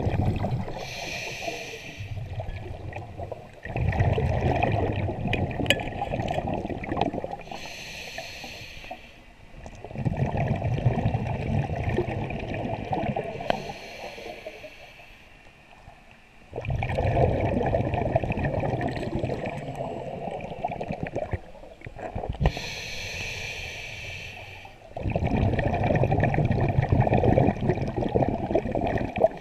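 A scuba diver breathing through a regulator underwater: a short hissing inhale, then a longer rush of gurgling exhaled bubbles, repeating several times.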